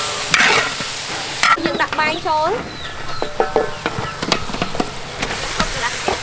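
Metal spatula scraping and tapping against a large wok while diced carrots and green beans sizzle in oil. A brief animal call cuts in about two seconds in.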